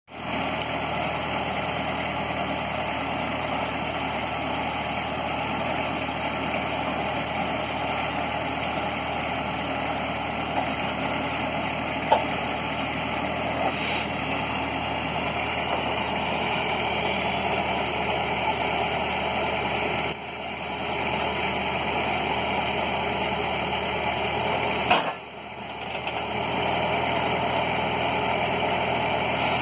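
Portable sawmill's engine running steadily while its hydraulic loading arms lift a log onto the mill bed. A single sharp knock comes about twelve seconds in, and the engine sound briefly drops twice, around twenty and twenty-five seconds in.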